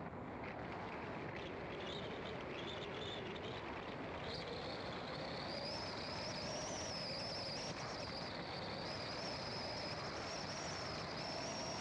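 A car driving along a road: steady tyre and engine noise, with the engine note rising slowly. About four seconds in, a high, steady, slightly wavering whine joins and continues.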